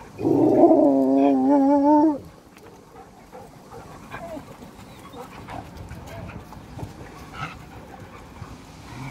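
A dog gives a loud, drawn-out whining cry lasting about two seconds, its pitch wavering near the end. Afterwards there are only a few faint whimpers.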